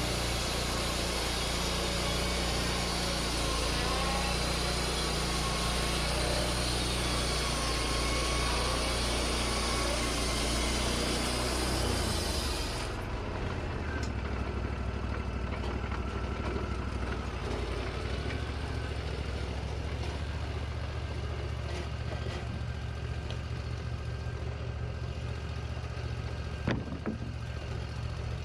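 Wood-Mizer LT40 band sawmill running. For about the first half a loud, even hiss from the blade cutting the pine log sits over the steady engine. The hiss stops abruptly about halfway, and the engine runs on steadily, with one sharp knock near the end.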